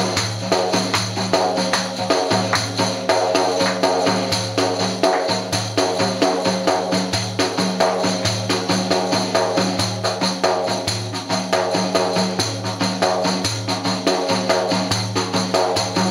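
Def, a large Albanian frame drum, played by hand in a fast, steady rhythm of repeated strokes.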